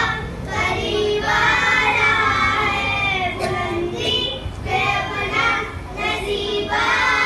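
Young boys singing a devotional naat together in phrases, led by a voice on a microphone.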